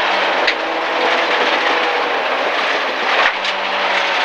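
Rally-prepared MG ZR 1.4-litre car heard from inside the cabin at speed on a gravel stage. The engine runs under load beneath a loud, continuous rush of tyre and gravel noise, with a few sharp ticks of stones striking the car.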